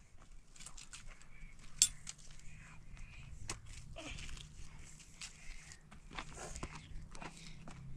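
Thin wooden boards and sticks knocking and clattering as they are laid into a stone fire pit, with scuffing footsteps on gravel; one sharper clack about two seconds in.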